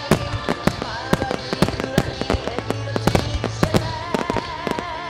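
Starmine firework barrage: many sharp bangs and crackles from shells bursting in quick succession, several a second, with music playing underneath and a held, wavering note near the end.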